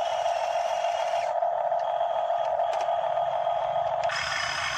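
Radio-controlled hydraulic excavators' pumps running with a steady whine, thin higher tones shifting as the controls are worked. About four seconds in the whine drops back and a harsher, higher hiss takes over.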